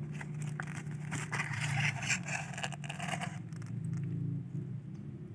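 Rustling and scraping as a hand brushes through water spinach stems and leaves close to the microphone, with scattered small clicks, over a steady low drone. The rustling dies down after about three and a half seconds.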